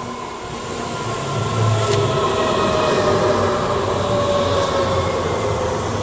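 A Stuttgart S-Bahn class 423 electric multiple unit pulls into the platform, getting louder as it comes alongside over the first couple of seconds. Its electric drive whine falls slowly in pitch as it brakes, over the rumble of wheels on rail.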